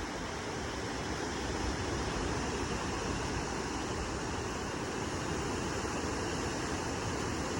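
Sea waves washing onto a beach: a steady surf noise without distinct breaks.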